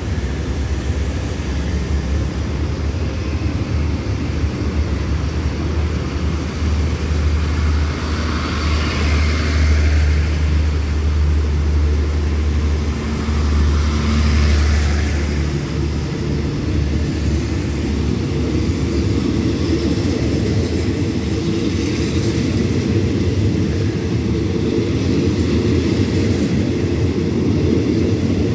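Passenger train carriages rolling past a station platform: a steady low rumble of wheels and running gear, with two brief hissing swells about eight and fourteen seconds in.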